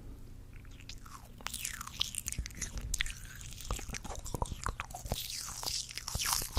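Crisp crunching and crackling, a quick run of many sharp cracks that starts about a second and a half in after a low hum.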